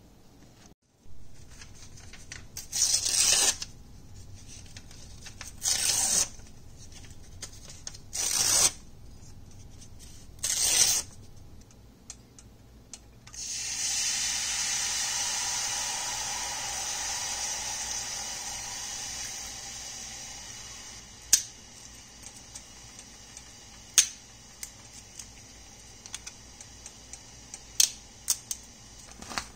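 A paper book page torn into pieces in four quick rips, then water poured into a saucepan for several seconds, then a few sharp clicks as cinnamon sticks are dropped into the pan.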